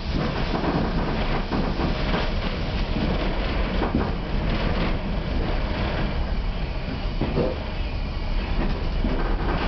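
Inside a railway passenger coach on the move: a steady rumble of the wheels on the track, with scattered knocks and clicks.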